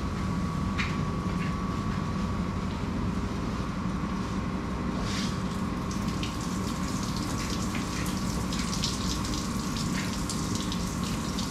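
Honda four-stroke outboard motor idling steadily while being flushed through a flushing muff, with water from the garden hose hissing and splashing.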